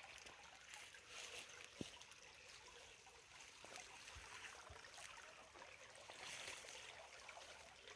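Faint, steady trickle of a small stream of running water, with a single short click about two seconds in.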